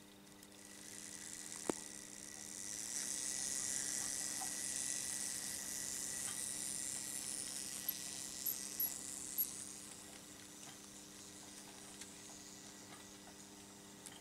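Märklin H0 model train running on metal M-track: the running noise of wheels and motor swells about half a second in and fades after about ten seconds, with a steady electrical hum underneath. There is one sharp click near the start and a few quick ticks later on.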